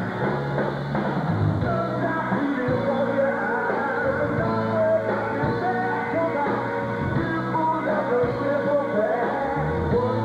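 A live funk-rock band playing a song with a lead singer, over electric guitar, bass and drums.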